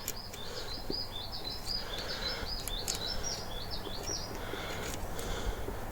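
A songbird singing a fast run of short, repeated chirping notes for about four seconds, over a low steady hum.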